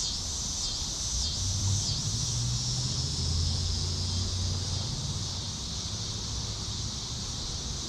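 Steady high-pitched chorus of insects buzzing, with the low hum of a distant engine swelling in the middle and fading away, like a vehicle passing.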